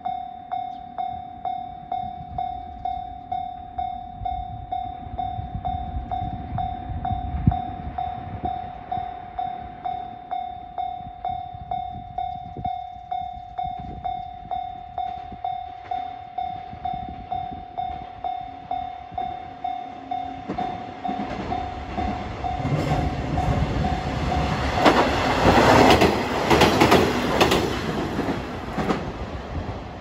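Japanese level-crossing warning bell ringing in a steady, fast, even ding-ding rhythm. About two-thirds of the way in, a two-car KiHa 120 diesel railcar comes through the crossing, its engine and wheels on the rails growing loud and peaking near the end while the bell keeps ringing.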